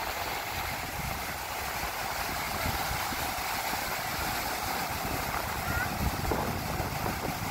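Mediterranean surf breaking and washing up a sandy beach: a steady hiss of waves, with wind rumbling on the microphone.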